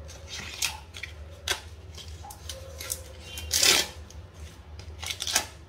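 Green husk leaves being torn and stripped off a fresh ear of corn by hand: rustling and ripping in short, irregular bursts, the loudest about three and a half seconds in.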